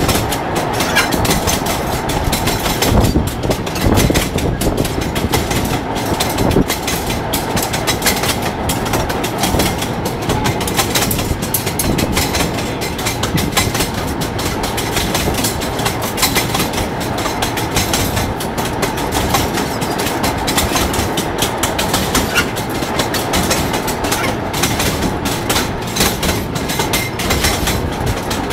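Wheels of a draisine (rail trolley) knocking and clattering steadily over the rail joints as it runs along the track, with continuous running noise underneath.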